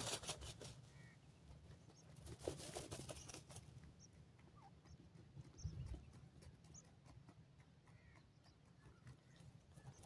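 Young francolins dust-bathing in loose dry soil: faint scratchy rustling of earth and feathers, strongest about two to three and a half seconds in, with a dull bump just before six seconds and a few soft, short high peeps scattered throughout.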